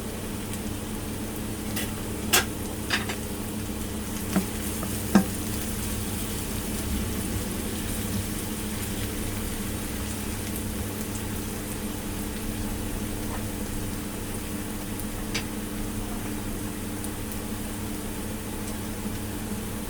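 Ampalaya frying in a pan with a steady sizzle, and a utensil clicking against the pan a few times in the first five seconds and once more about fifteen seconds in, over a constant low hum.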